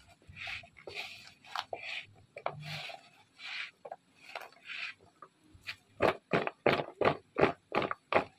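Hand squeezing and turning raw potato sticks in a dry flour-and-spice coating in a bowl, soft irregular rustling and squelching. About six seconds in it changes to a regular, louder shaking of the bowl, about two and a half tosses a second, as the fries are tossed to coat them.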